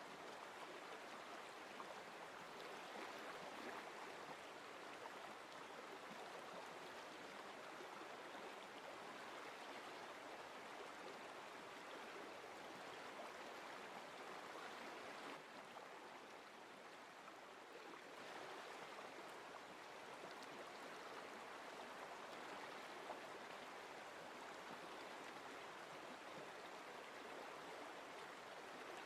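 Quiet, steady rushing of a flowing stream, dipping slightly about halfway through.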